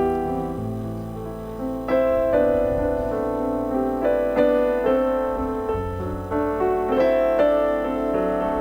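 Background piano music: a slow, gentle melody with notes struck about once or twice a second.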